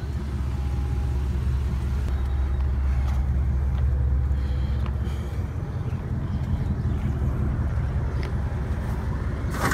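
A motor vehicle running, with a steady low engine and road rumble, and a short sharp click or knock near the end.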